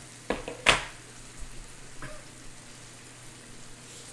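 Meat sizzling steadily on the grill plate of an electric hot pot and grill, with a few short sharp sounds in the first second, the loudest just before the one-second mark.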